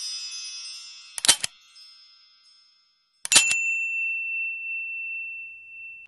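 Intro sound effects of chimes and dings. A shimmering chime fades out, then a sharp hit comes about a second in. A second hit comes about three seconds in and leaves one high ringing tone that holds for over two seconds.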